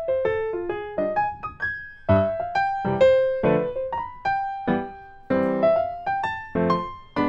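Background music: a light keyboard melody of single struck notes that each die away, with fuller chords about two seconds in and near the end.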